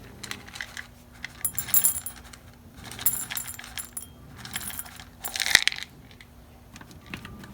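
Dry cat kibble rattling in four short bursts, with a bright ringing jingle, as it is shaken or poured; the loudest burst comes near the middle.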